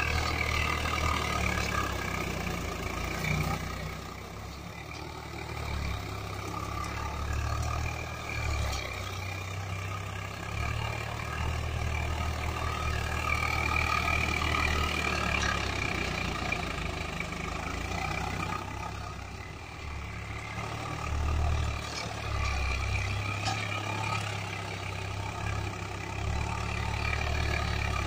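Swaraj 744 FE tractor's three-cylinder diesel engine running steadily under load as it works a rotary tiller through dry soil, its loudness easing briefly a few times.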